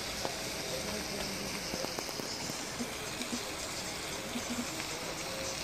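Steady, even outdoor hiss with a few faint ticks scattered through it.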